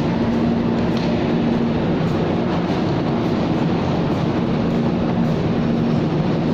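Large passenger ship under way: a steady drone of its machinery, with a low hum and an even rushing noise over it.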